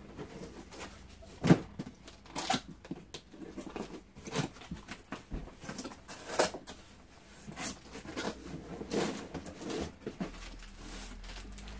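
Packaging being handled while a stick vacuum is unpacked: irregular rustling, crinkling and knocks of cardboard and plastic wrapping, with one sharper knock about a second and a half in.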